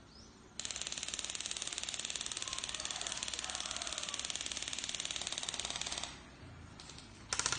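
BB gun firing one long fully automatic burst: a fast, even stream of clicks that starts about half a second in and stops about a second and a half before the end.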